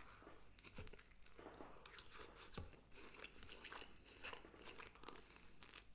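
A person biting into and chewing pizza close to the microphone: faint, irregular wet mouth clicks and small crackles of the crust.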